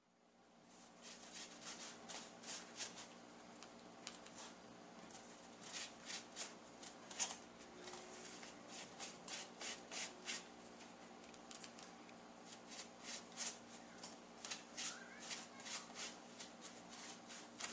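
Short, irregular scratchy strokes of a small brush spreading contact cement (bond) along the cut edges of thick sponge foam, about one to three strokes a second, over a faint steady hum. The cement is left to get tacky before the foam edges are pressed together.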